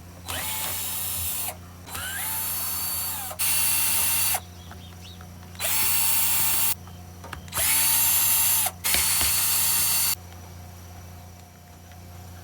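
Cordless power drill/driver running in six short bursts of about a second each. Each burst has a motor whine that rises as the trigger is pulled, holds, and falls away when it is released. It is backing screws out of an angle grinder's housing during a teardown.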